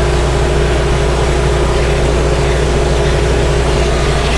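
A 6.0 shop vac, driving a homemade carpet extractor, running steadily. Its motor gives a steady hum under the rush of air being sucked through the wet carpet.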